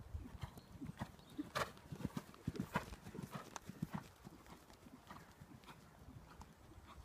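Hoofbeats of a ridden horse moving over a sand arena surface: a faint, uneven run of soft thuds, with a couple of brief sharper noises about one and a half and two and three-quarter seconds in.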